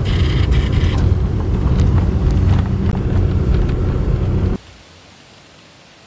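A car driving along a forest road, heard from inside the cabin: a loud, steady rumble of engine and road noise with a few sharp ticks in the first second. It cuts off suddenly about four and a half seconds in, leaving a faint steady hiss.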